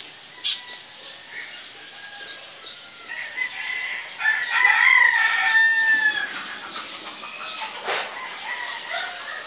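A rooster crowing once, a long call of about three seconds that starts a little past three seconds in and falls away at the end. A short click follows shortly before the end.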